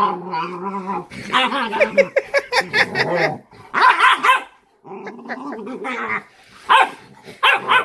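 Cane Corso puppy growling, yelping and barking in a rough play-fight with its mother, in a run of loud bursts: longer, wavering cries in the first half, then shorter sharp barks toward the end.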